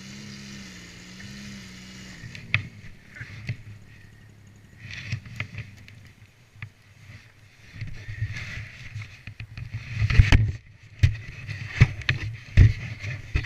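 ATV engine running for about two and a half seconds, its pitch wavering slightly, then falling away. After that come patches of rushing hiss and a series of irregular knocks and thumps, loudest in the second half.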